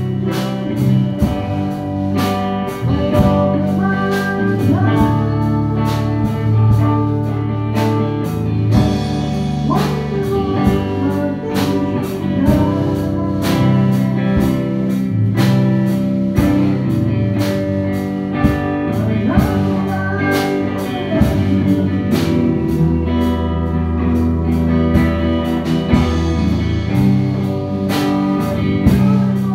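Live worship band playing: guitar and drum kit, with a man singing into a microphone.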